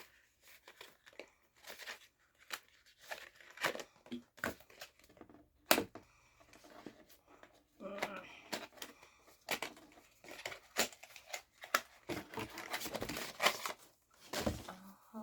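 Packaging of a makeup palette being torn open and crinkled by hand, with scattered sharp clicks and taps as it is handled.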